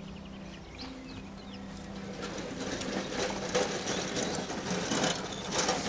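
Wheels of a small hand-pushed cart rattling over a concrete sidewalk, a fast clatter that grows louder about two seconds in.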